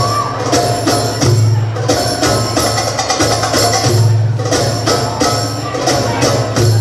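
Belly-dance drum solo music: a fast, dense rhythm of many sharp hand-drum strokes over a low pulsing beat.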